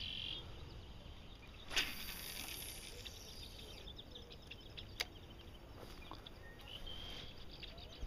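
A fishing rod cast: a sudden whoosh about two seconds in that drops in pitch and fades over a second or so, followed by a single sharp click a few seconds later, with faint bird chirps in the background.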